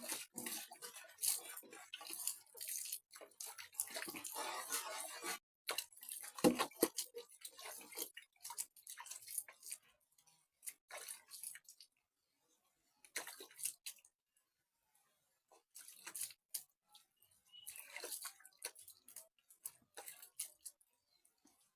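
Irregular rubbing, scraping and splashing of hands and feet being washed clean of mud in a basin of water, in short bouts with brief pauses.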